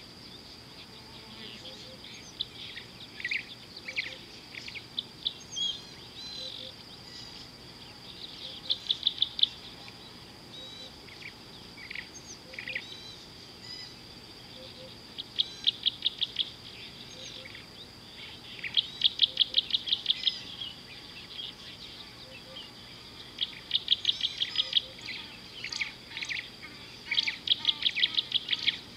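Wild birds calling by a river, in about five trains of rapid repeated chirps and scattered single calls, over a steady high-pitched insect drone.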